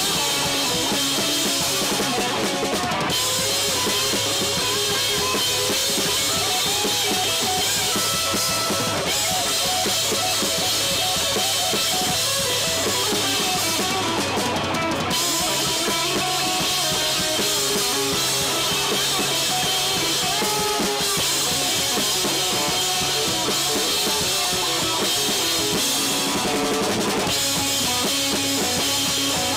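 Live rock band playing on amplified instruments: a drum kit driving the beat under two electric guitars and an electric bass guitar.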